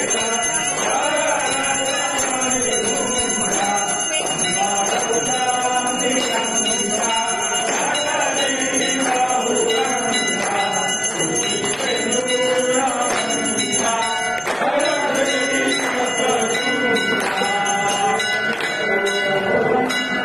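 Temple bells ringing without pause for the aarti, over many voices singing the aarti hymn.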